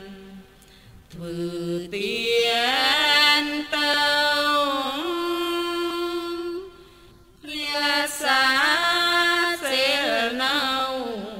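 A single voice in melodic Buddhist chanting, holding long notes that slide slowly up and down, with a pause for breath just after the start and another about seven seconds in.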